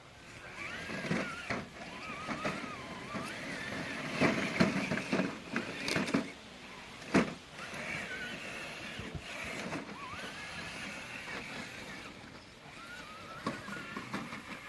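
Radio-controlled scale crawler truck's electric motor and drivetrain whining in short runs, the pitch rising and falling with the throttle, with several sharp knocks and clatter of the truck against the course.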